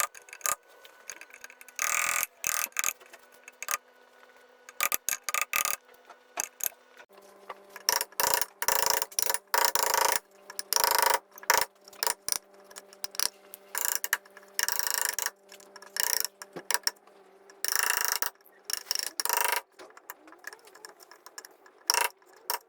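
Woodworking tool sounds: a fast, irregular run of clicks and knocks broken by short bursts of scraping.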